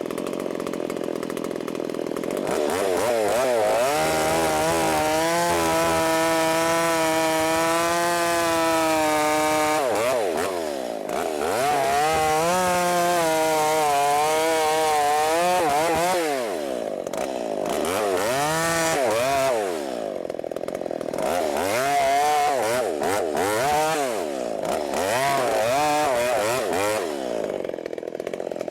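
Two-stroke chainsaw revving up from idle, held at high revs with a wavering pitch for several seconds twice, then a run of short throttle bursts, settling back to idle near the end.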